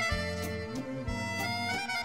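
Instrumental background music: held, reedy melody notes over a moving bass line with a regular beat.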